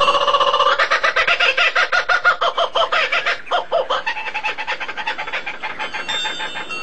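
Bird calls in a rapid chattering series, about ten notes a second, loud at first and softer after a brief break about three and a half seconds in.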